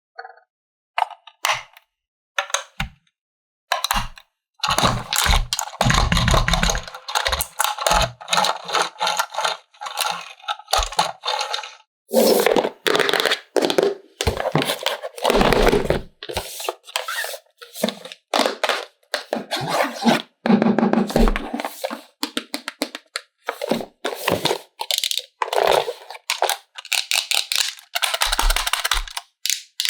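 Plastic toy parts and packaging being handled: irregular clicks, knocks and scraping, with denser stretches of rustling and rattling.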